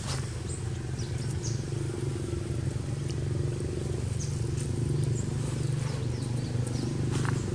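Steady low engine hum, like a motor running nearby. Faint crackles of dry leaves, from a macaque walking over leaf litter, come near the end.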